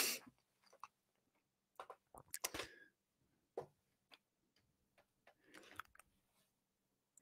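Faint, irregular clicks and small taps from a computer mouse and keyboard at a desk, about a dozen spread unevenly, with a soft breath or mouth sound now and then.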